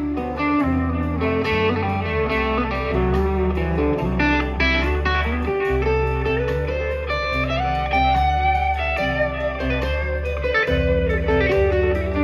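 Live rock band playing an instrumental passage: electric guitar lines over a bass line and a steady beat.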